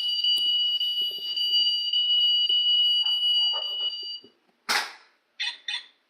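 Electronic sound effect from a toy model car's small speaker: a steady, high-pitched two-note tone for about four seconds, then a sharp click and two short bursts of sound.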